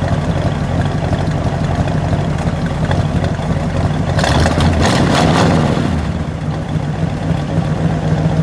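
A 1965 Buick Skylark Gran Sport's 401 cubic-inch Nailhead V8 idling through its dual exhaust, given one short rev about four seconds in that rises and falls back to idle within two seconds.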